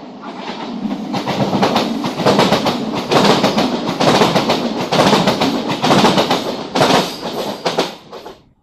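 Renfe train passing close by, its wheels clattering over the rail joints in an uneven repeating rhythm. The sound builds over the first couple of seconds, stays loud, and cuts off suddenly near the end.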